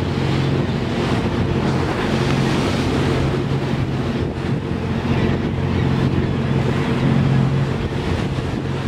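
A boat's engine running with a steady low drone, mixed with wind buffeting the microphone and the rush of water.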